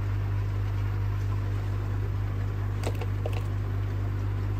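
Steady low mechanical hum with a few light metal clicks about three seconds in, from steel sockets being handled while the right size is found for the valve nuts.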